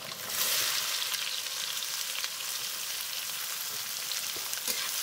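Chopped onions sizzling as they go into hot mustard oil in a kadhai on top of a crackled tempering; the sizzle jumps up about a third of a second in and then holds steady.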